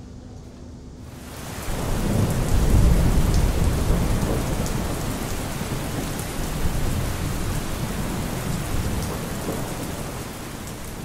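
Heavy rain pouring down, coming in about a second in, with a deep rumble of thunder that swells around two to four seconds in and then gives way to the steady downpour.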